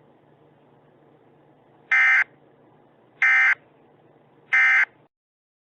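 Emergency Alert System end-of-message (EOM) code: three short, identical bursts of SAME digital data tones, a little over a second apart, that mark the close of an EAS broadcast.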